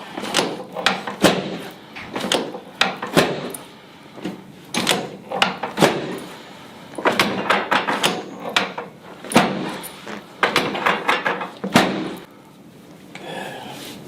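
Irregular knocks and thuds, roughly one or two a second, from a chiropractic treatment: the table and the patient's body being worked. There are brief lulls near four seconds in and just after twelve.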